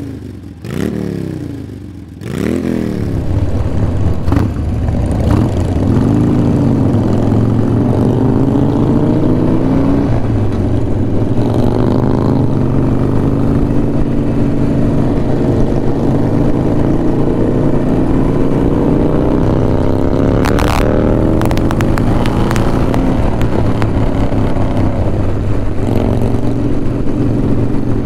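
Harley-Davidson Iron 1200 Sportster's air-cooled V-twin revved in three quick blips, then running loud and steady under way at road speed, its pitch climbing and settling as it pulls through the gears.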